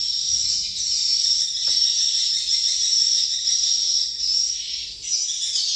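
Swiftlets chirping, a dense, steady, high-pitched twittering from many birds at once, the continuous sound of a swiftlet house colony.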